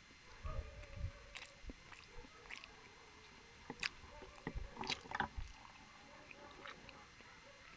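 Close-up chewing and mouth sounds: wet smacks and sharp clicks, coming in clusters, loudest around a second in and again about four to five seconds in.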